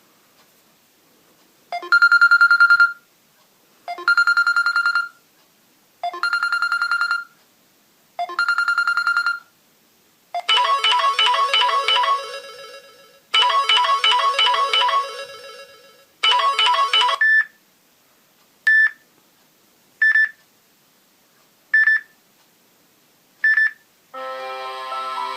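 Samsung Galaxy J1 Ace ringtones playing. There are four identical electronic beeps about two seconds apart, then three short bright melodic phrases, then five short high blips. A fuller musical ringtone begins near the end.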